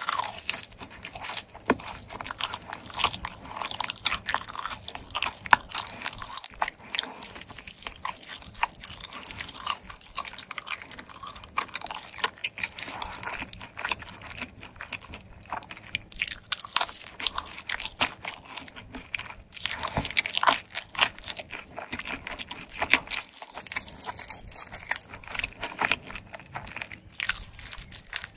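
Close-up biting and chewing of pizza crust: a continuous stream of crisp crunches and crackles as the crust is bitten and chewed.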